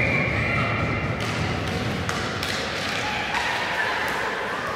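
Ice hockey play on a rink: a few sharp knocks of sticks and puck over a steady rink din, with voices calling out in the background.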